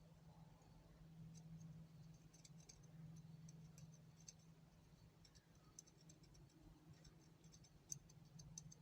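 Near silence: a steady low hum with scattered faint light clicks and ticks of small ratchet parts being handled and greased.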